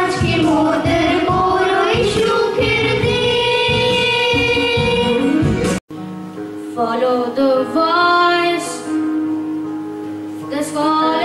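Children singing into microphones over music. About six seconds in the sound cuts out for an instant, then one child sings over steady held instrumental notes.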